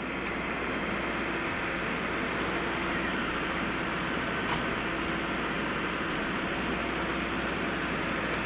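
Diesel engine of a backhoe loader running steadily, with a faint steady hum over the engine noise.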